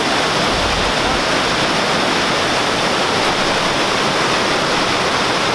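Waterfall rushing steadily at close range, a loud, even roar of falling water with no breaks.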